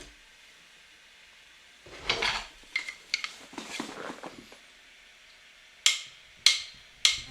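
Kitchen clatter of dishes and utensils: a second or two of knocking and scraping a couple of seconds in, then two sharp knocks near the end.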